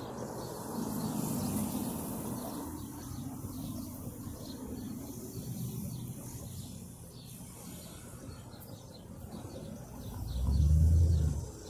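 Road traffic going past, a steady low rumble of cars, with a louder vehicle passing close near the end. Birds chirp faintly.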